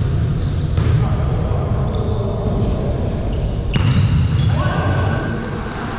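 Volleyball hits and bounces echoing in a gym hall, two sharp ones about a second in and near four seconds, with short high squeaks between them over a steady murmur of voices.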